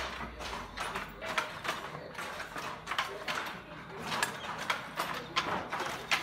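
Foot-operated weaving looms clacking as they work: irregular sharp knocks of the shuttle and beater, about two a second.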